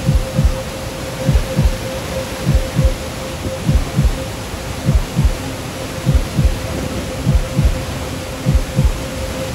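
A heartbeat-like soundtrack: paired low thumps repeating about every 1.2 s over a steady hum, rather than the flood itself.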